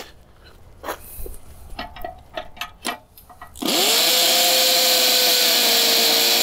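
Bauer 7.5-amp corded hammer drill boring into a concrete driveway. It starts a little over halfway through, its motor whine rising and then holding steady under loud hammering. Before it starts there are a few light clicks and knocks.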